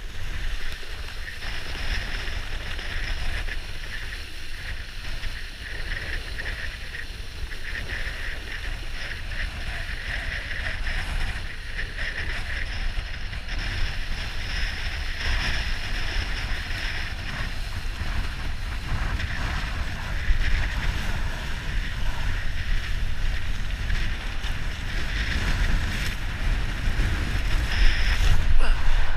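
Kiteboard skimming across the lake at speed: a steady rush of water and spray, with wind rumbling on the microphone, getting louder near the end.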